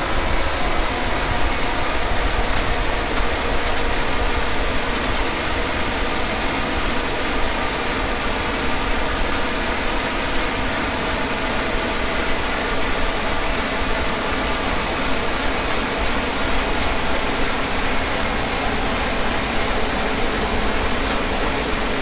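Case IH 8250 combine running steadily while harvesting wheat, a continuous even mechanical din.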